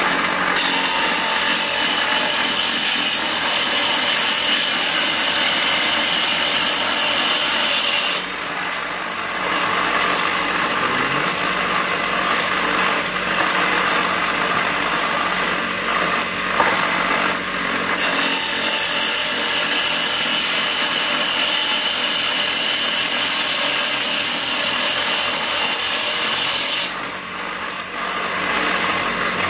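Homemade table saw, its blade driven by a salvaged water-pump electric motor, cutting an old wooden batten twice. Each cut lasts about eight seconds, from just after the start and again from about 18 seconds in, and the motor keeps running freely between and after them.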